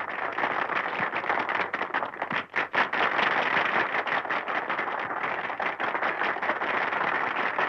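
Audience applauding, a dense, steady clatter of clapping, heard through a 1930s film soundtrack.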